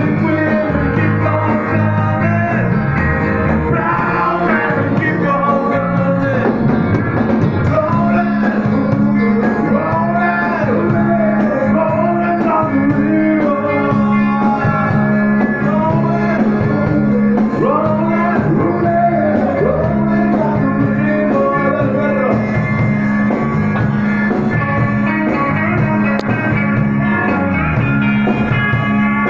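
Live rock band playing electric guitar, bass and drums, with a man singing loudly into a microphone over a steady low bass note.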